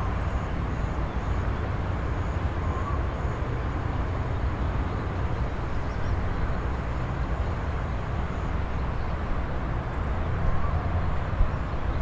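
Steady open-air ambience made mostly of a low rumble, with faint short high chirps repeating in small groups.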